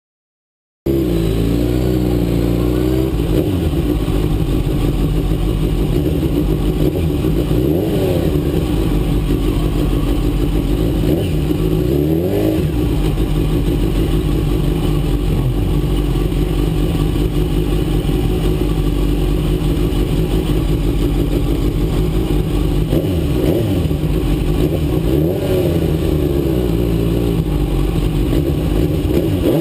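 2003 Suzuki GSX-R1000 K3's inline-four engine idling steadily while the bike stands still, heard close up from an onboard camera. The sound cuts in suddenly about a second in, and the engine is briefly revved and settles back to idle a few times.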